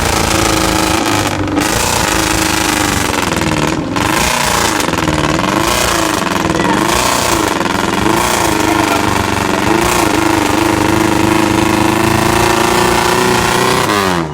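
Off-road vehicle's engine revving hard under load, its pitch rising and falling several times over in quick surges, then held high and steady before cutting off suddenly.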